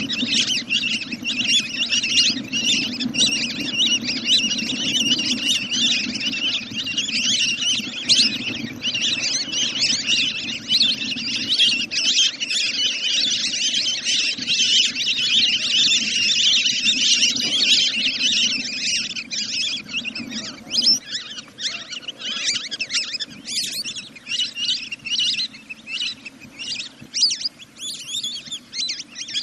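Dense, continuous chatter of many rapid, high bird calls, played as a decoy call to lure birds down at night. A low hum runs underneath and stops about two-thirds of the way through.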